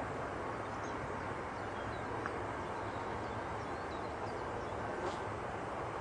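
Steady outdoor background noise, a continuous rushing with a low hum, with a few faint short bird chirps.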